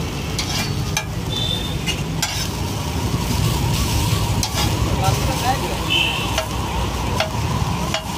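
Egg omelette sizzling on a large flat iron griddle while a metal spatula scrapes and clicks against the iron, lifting and turning it over. A steady low rumble runs underneath.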